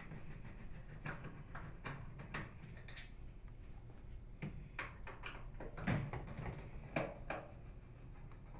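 Scattered light clicks and clatters of a Phillips screwdriver backing out the screws on a microwave oven's upper door hinge, with a couple of louder knocks about six and seven seconds in.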